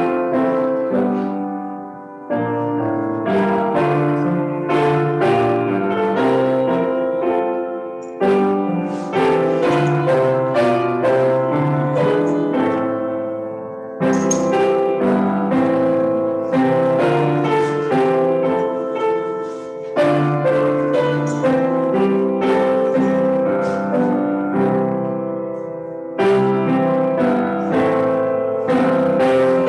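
Solo piano music, played in phrases of about six seconds, each one fading slightly before the next begins with a sudden loud chord.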